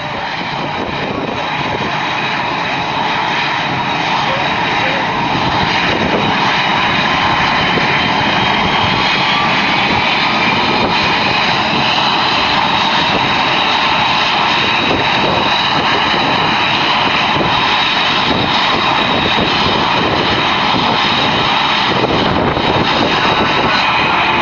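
Aircraft engine running loud and steady, with high steady whining tones over a dense rumble.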